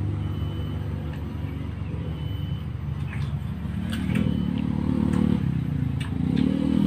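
A steady low engine rumble, swelling about four seconds in and again near the end. A few faint wet bites into watermelon come over it.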